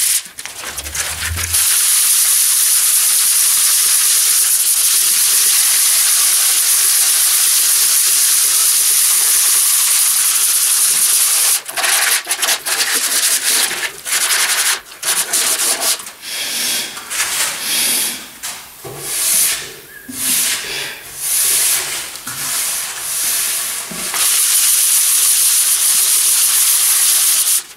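180-grit sandpaper rubbed by hand over glazed wood, a continuous scratchy hiss for the first ten seconds or so, then shorter separate strokes about once a second. It is a light sanding between coats, taking off wood fibres that the glaze has raised.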